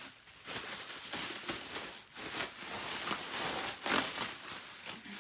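Bubble wrap and plastic packaging crinkling and rustling as they are pulled off a box by hand, with irregular crackles.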